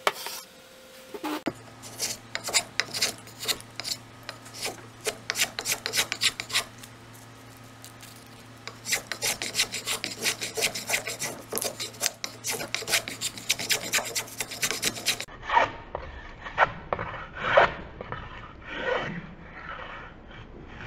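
A small hand plane, freshly tuned, shaving a board in quick repeated strokes, each pass a short rasping scrape on the wood, about two or three a second. The strokes pause briefly midway and come slower and softer near the end.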